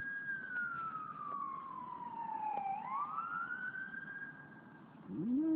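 Fire truck siren wailing: one slow fall in pitch, then a rise back up, fading out. Near the end a dog starts howling, its voice sliding up into a steady held note.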